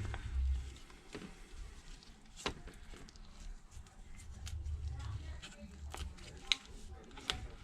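Scattered light clicks and scrapes of a thin pry tool working into the adhesive seam between an iPad Air 3's screen and its frame, with low, uneven handling bumps.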